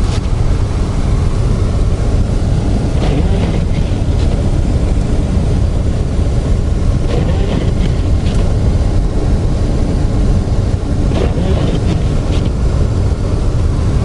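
Steady low rumble of a car driving on snowy roads, heard from inside the cabin, with a few brief scratchy sounds now and then.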